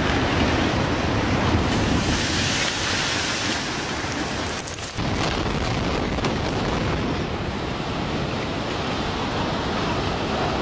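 Steady rumble of buildings collapsing in controlled demolitions: a concrete high-rise coming down, then, after a sudden change about five seconds in, a row of tall smokestacks falling.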